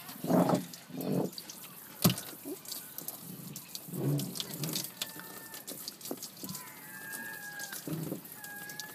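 Water splashing and dripping in small clicks and trickles, with a sharp knock about two seconds in and a thin whistling tone over the last few seconds.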